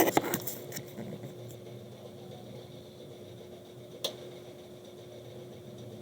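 Desktop computer running with a steady fan hum. A quick run of clicks and knocks comes at the start, and a single sharp click about four seconds in.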